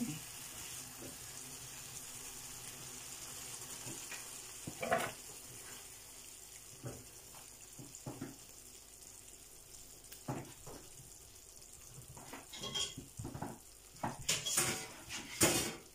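Chili con carne of minced beef, tomatoes and kidney beans sizzling in a frying pan with a steady hiss. A spatula stirring it knocks and scrapes against the pan now and then, most often near the end.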